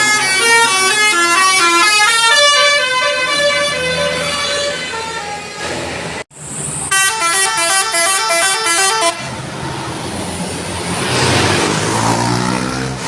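Musical 'telolet basuri' horns on Indonesian tour buses, each playing a tune of stepped tones. The first tune breaks off sharply a little past the middle, and a second short tune follows. After that comes a noisier stretch without the tune.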